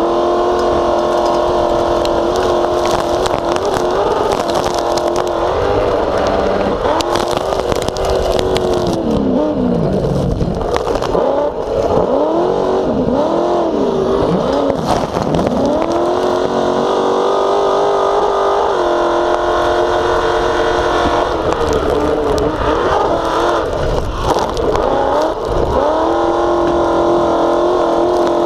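Pro Light short-course off-road race truck's engine running hard at high revs, heard from inside the cab. About ten seconds in, the revs drop and climb back in several quick swoops over a few seconds, then hold high again.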